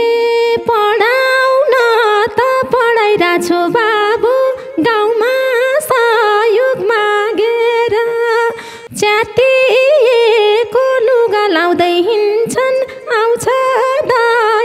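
A woman singing a Nepali dohori folk melody solo in a high voice, the line bending and ornamented, with short breaks between phrases and a brief pause about nine seconds in.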